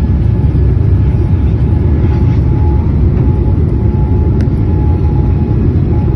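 Boeing 787 Dreamliner airliner during takeoff: a loud, steady rumble with a faint steady whine above it.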